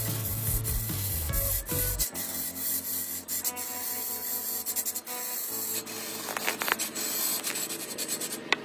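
Flat scraping blade cutting into a large log spinning on a giant wood lathe: a continuous harsh scraping with rapid crackling ticks as chips tear away, over a steady low hum. The sound shifts abruptly about two seconds in and again past five seconds.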